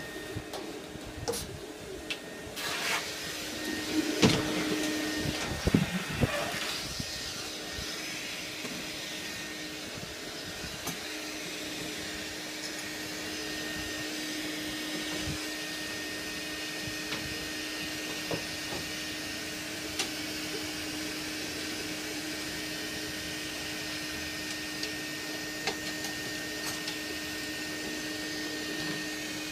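Electric motor running steadily, a constant hum with a thin high whine over it. Sharp knocks and clatter come during the first several seconds.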